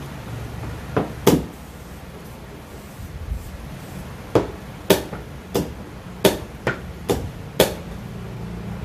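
Sharp wooden knocks of chess moves being played at the board, about nine in all: a pair about a second in, then a quicker run through the second half.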